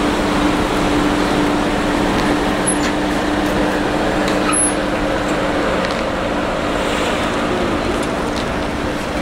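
Steady hum of a car engine running with traffic noise, an even rushing sound under a low drone, as a car rolls out slowly.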